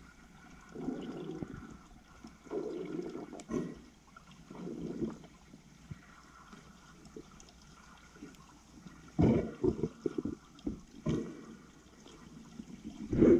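Underwater bubbling as air is breathed out through the nose into a snorkel mask to clear it of water: three gurgling bursts of about a second each, then a quicker run of sharper bubble bursts, the loudest near the end.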